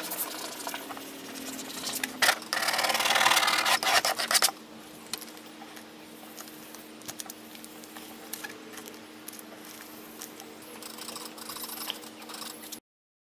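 Rubbing and scraping on a vinyl lettering decal as it is pressed onto a painted boat hull, its clear transfer tape peeled back and the letters burnished with a plastic squeegee. A loud stretch of scraping comes about two seconds in, followed by lighter intermittent rubbing, and the sound cuts off near the end.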